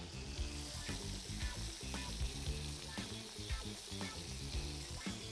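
Yogurt-and-garlic-marinated chicken pieces sizzling steadily on a hot oiled griddle, with quiet music underneath.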